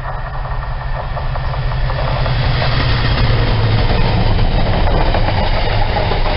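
Diesel freight locomotive engine running under power as it approaches and passes close by, its low drone swelling over the first few seconds, then the container wagons following with rolling wheel clatter on the rails.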